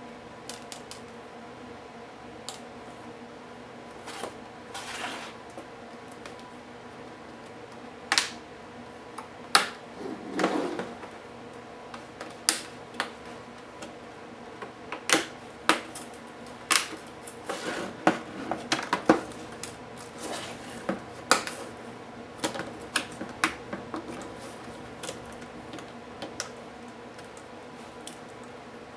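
Irregular clicks, taps and knocks of small plastic and metal parts of a Lenovo IdeaPad U460 laptop and hand tools being handled as the laptop is taken apart, with a couple of brief scraping sounds. The clicks come thickest in the middle stretch, over a faint steady hum.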